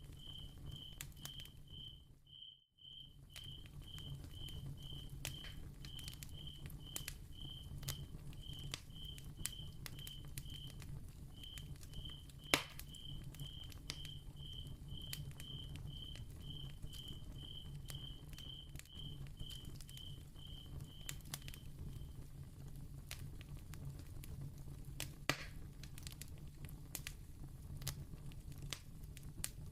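Candle crackling ambience: soft scattered crackles and small pops over a steady low hum, with two louder pops. A high, even chirp repeats about twice a second and stops a little before the end. The sound drops out briefly for a moment near the start.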